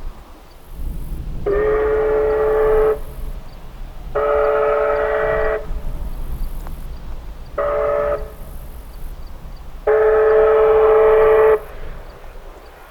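Steam locomotive's whistle sounding the grade-crossing signal: two long blasts, a short one, and a final long one, the first blast sliding up to pitch as it opens. A low rumble runs underneath.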